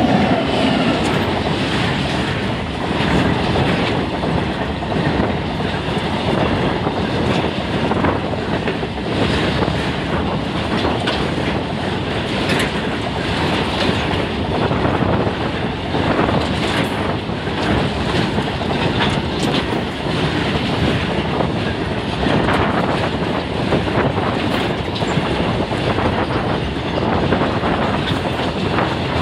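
Freight train of BCNA covered wagons behind a WAG9 electric locomotive passing close by: a steady, loud rumble of steel wheels on rail, with a continual clickety-clack of wheels over the rail joints.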